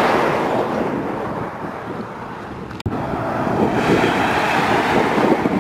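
Container semi-trucks passing close on a highway. One truck's tyre and engine rush fades over the first couple of seconds, then cuts out briefly. A second truck's sound builds toward the end.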